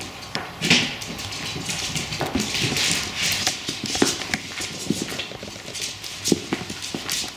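Welsh Terrier puppies play-fighting and tugging at a slipper on a wooden floor, their claws clicking and scrabbling on the boards in quick, irregular scuffles.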